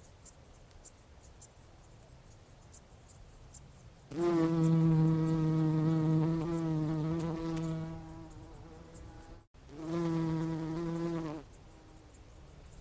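Bumblebee buzzing in flight: a low, steady hum, heard twice, first for about three and a half seconds, fading at the end, then again for about a second and a half, stopping abruptly.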